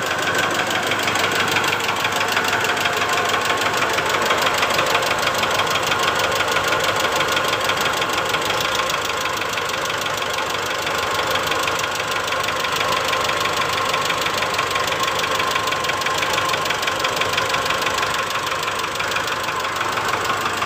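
Mitsubishi Strada Triton's four-cylinder diesel engine idling rough, with a steady, rapid 'tak-tak-tak' knock that goes on while the injectors are unplugged one at a time. The mechanic suspects injector number 1 as the cause of the knock.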